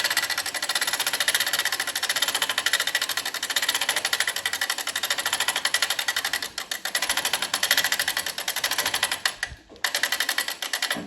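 A small machine running with a rapid, even clatter, with two brief dips partway through.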